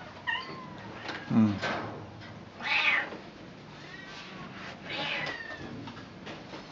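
A cat meowing about five times in short separate calls.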